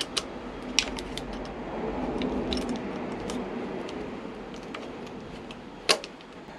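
Light metallic clicks and taps of an Allen key working the bolts of a motorcycle fly-screen mounting bracket, with one sharper click near the end.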